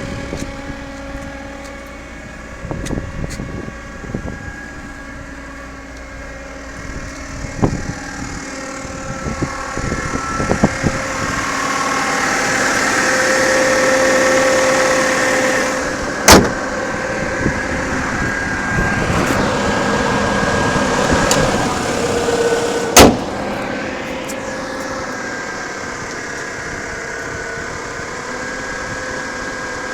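Volkswagen Passat B5 running with its automatic gearbox humming, a steady whine over the engine. This is the hum the owner is taking the car in for transmission repair over. A louder stretch swells in the middle, and two sharp knocks come about 16 and 23 seconds in.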